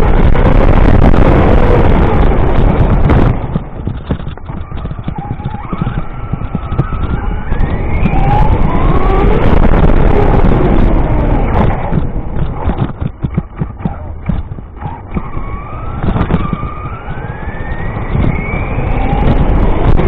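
RC car motor running hard, its whine rising in pitch several times as the car speeds up, over a loud rumble of driving noise.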